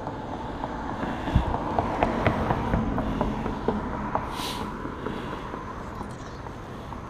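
Fishing rod and reel being handled: a run of irregular clicks and knocks through the first half, and a brief hiss a little past halfway, over steady background noise.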